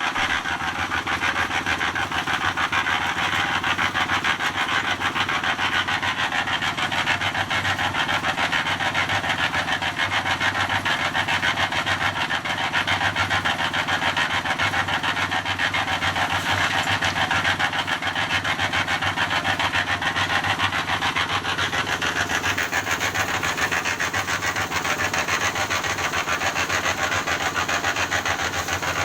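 A machine running steadily, with a harsh rasping, rubbing noise over a low drone; the character of the noise shifts slightly about two-thirds of the way through.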